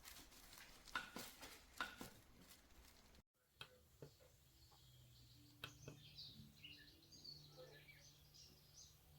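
Faint room tone with two sharp clicks in the first two seconds. After a brief cut-out, faint scattered high chirps like birdsong sound over a low steady hum.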